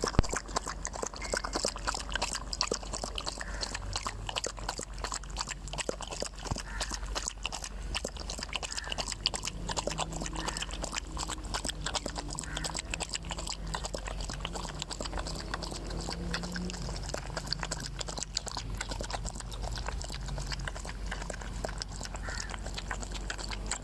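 Dog lapping water close up: a fast, continuous run of wet tongue laps.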